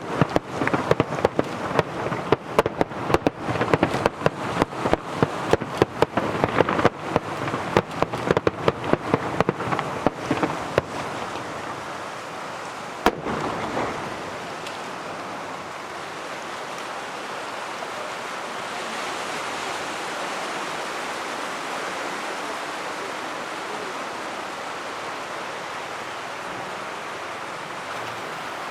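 Fireworks going off in a rapid, dense string of bangs and crackles for about the first eleven seconds, then one more single bang. After that only a steady rushing background noise remains.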